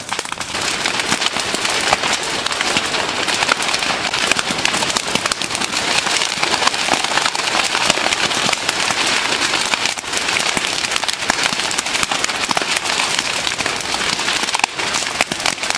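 Sugarcane field burning: dense, continuous crackling and popping of flames through the cane stalks and leaves.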